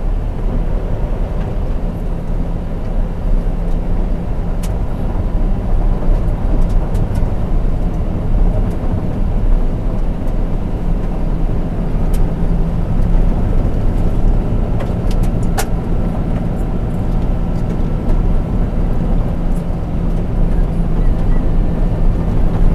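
A four-wheel drive's engine and tyres running on a dirt road at about 30 to 38 km/h, a steady low rumble heard from inside the cabin. A few sharp clicks are scattered through it.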